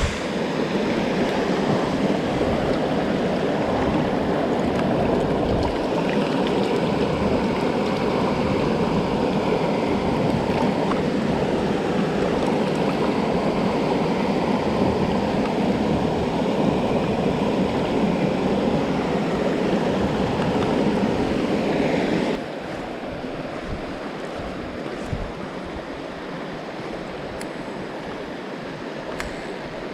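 Mountain stream water rushing steadily over rocks; about 22 seconds in it drops suddenly to a softer, quieter flow.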